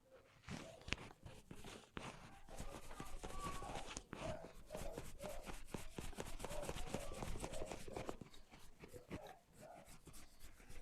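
Hands rubbing and working through hair and scalp in a hair-cracking head massage: a quiet, dense run of small crackles and rustles.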